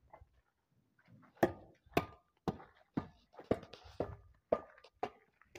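A steady run of sharp, hard knocks, about two a second, starting a little over a second in; some carry a brief ring.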